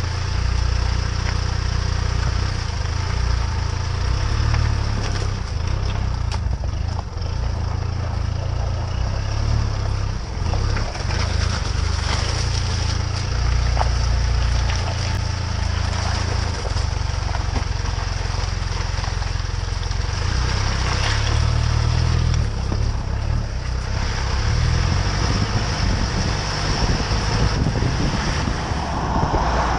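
Vehicle engine drone and tyre noise heard from beneath the chassis as it drives over rough dirt and through mud, with scattered sharp crunches and splashing.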